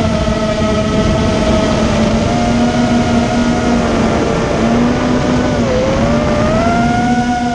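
ImmersionRC Vortex 250 Pro quadcopter's brushless motors and propellers whining steadily. The pitch wavers with throttle, dips a little after five seconds and climbs again. These are motors whose bad-bearing noise the owner thinks he has fixed.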